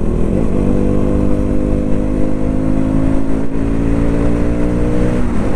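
KTM Duke motorcycle's single-cylinder engine running at a steady speed while cruising, its note dipping and recovering briefly about half a second in and again near the end.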